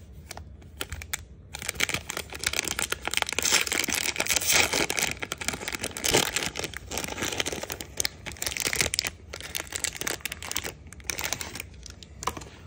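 Foil wrapper of a trading-card pack crinkling and tearing as it is pulled open by hand, starting about a second and a half in and easing off near the end.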